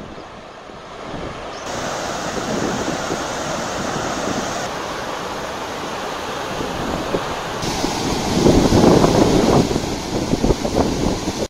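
Floodwater pouring over a dam's spillway and rushing through a flooded channel: a steady rush of water with wind buffeting the microphone. It is loudest about eight to ten seconds in.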